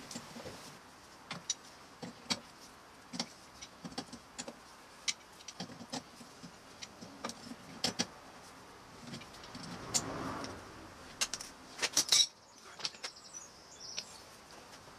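Irregular metallic clicks and scrapes of a hand tool working a firmly stuck screw stub out of a motorcycle's steel frame strut, with a louder clatter of clicks about twelve seconds in.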